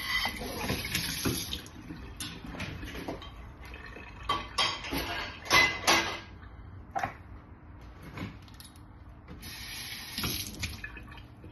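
Kitchen tap running for the first second or two, then scattered sharp clinks and knocks of dishes and utensils being handled. The loudest knocks come about halfway through.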